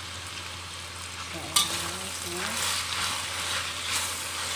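Ground meat and mushrooms sizzling in a hot stainless steel wok with freshly added soy and oyster sauces, stir-fried with a metal spatula. The spatula clinks sharply on the wok once about a second and a half in, then scrapes and tosses the mixture through the rest.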